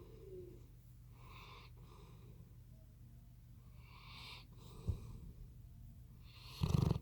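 Bloodhound snoring in its sleep: slow breathy snores every couple of seconds, with a short, loud snort near the end. A brief sharp click comes about five seconds in, over a steady low hum.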